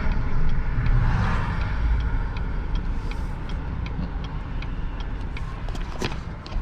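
Pickup truck driving, heard from inside the cab: a steady low engine and road rumble. A turn signal ticks evenly through it, and there is one sharper knock near the end.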